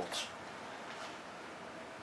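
A spoken word ends with an 's' hiss, then a steady, even background hiss with no distinct knocks or tool sounds.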